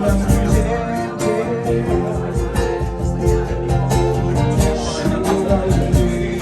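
Live band music at a sound check: guitar playing over a steady beat.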